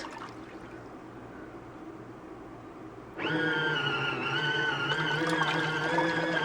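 Small electric motor of a collapsible portable washing machine starting up about three seconds in, then running with a steady humming whine.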